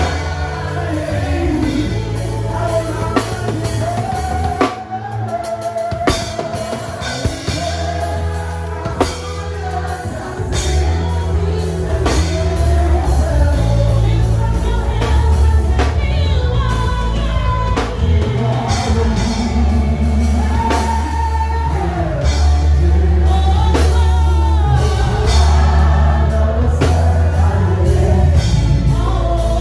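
Live gospel worship band: singers on microphones with backing voices, over keyboard, electric bass and drum kit. The music thins briefly about five seconds in, then builds back to full band.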